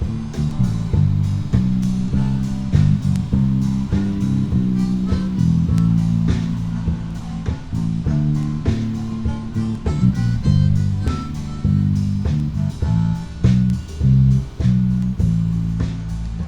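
A small blues-rock band playing an instrumental passage with guitar, bass guitar and drums, the bass line prominent under regular drum hits.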